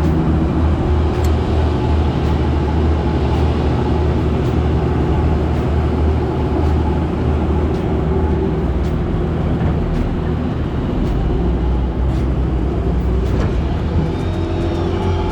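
Heavy diesel engine running at a steady speed: a loud, even low hum with no change in pitch.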